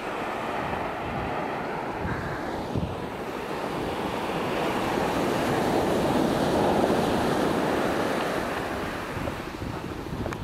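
Surf breaking on a sandy beach, swelling to its loudest around the middle and easing off toward the end, with wind buffeting the microphone.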